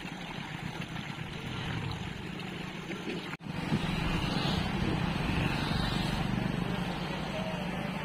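Steady rush of flowing river water with a low rumble. It breaks off for an instant about three and a half seconds in and comes back slightly louder.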